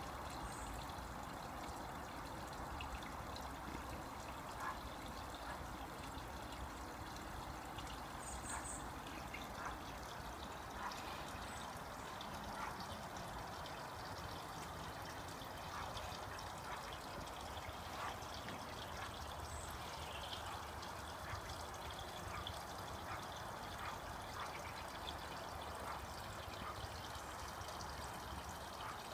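Water trickling and splashing steadily into a koi pond, with small drips now and then.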